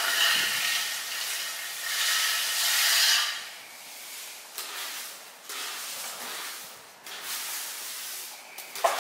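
A rake scraping and dragging dry pine branches and needles across a concrete floor in a few long strokes, loudest for the first three seconds and fainter after.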